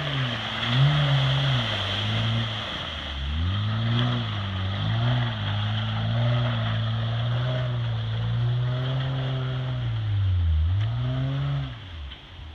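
Jeep Wrangler engine pulling at low revs under load on a steep mud climb, its note rising and falling as the throttle is worked gently, over a steady hiss. The engine note dips and fades near the end.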